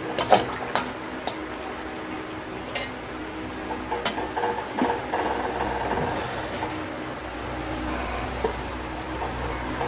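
Metal spatula scraping and clinking against a metal wok while stirring a wet tuna and mushroom sauce, with a cluster of sharp clicks in the first second and a few more scattered later. A steady low hum runs underneath.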